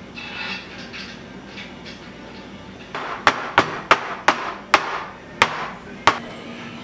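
A spatula scraping softly as it spreads brownie batter in a metal baking pan, then seven sharp knocks, most likely the filled pan being rapped on the countertop to settle and level the batter.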